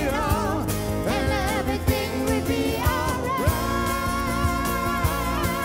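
Woman singing a song live over strummed acoustic guitar, bass and hand percussion, with a steady beat; about three and a half seconds in she holds one long note.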